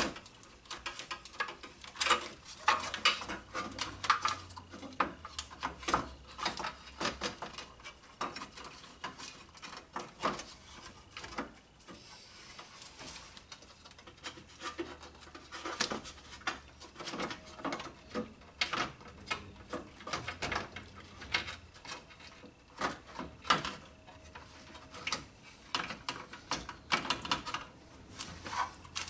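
Irregular plastic clicks, knocks and light rattles of a Civic A/C condenser fan and its plastic shroud being worked down into place behind the radiator, bumping as its mounting feet are guided into their holes. The noises come in clusters with a quieter stretch near the middle.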